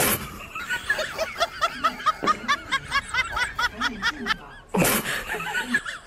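Rapid snickering laughter, a run of short wavering pulses about four or five a second. A short loud noisy burst comes at the start and another near the end.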